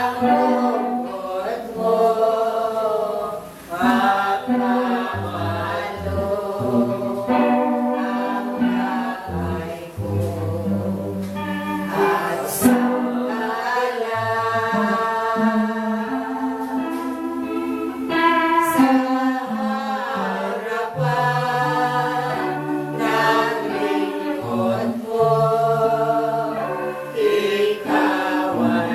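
A group of voices singing a slow, flowing praise chant with long held notes over sustained low notes.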